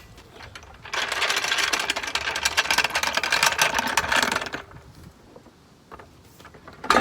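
A rapid mechanical clicking rattle for about three and a half seconds, then scattered small knocks and one sharp metallic clunk near the end.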